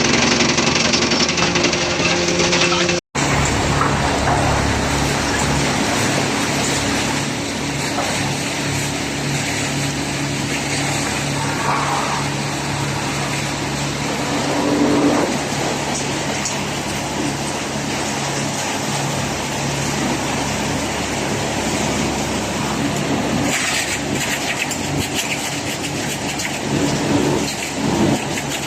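Wood-crushing machinery of a sawdust line running: a steady mechanical hum under a dense grinding and rushing noise. The sound cuts out for an instant about three seconds in and resumes with a slightly different hum.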